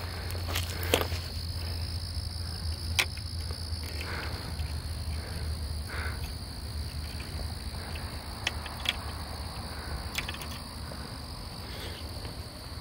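Steady chorus of crickets: one high, unbroken trill with a fainter, higher band above it. A few sharp clicks cut through it.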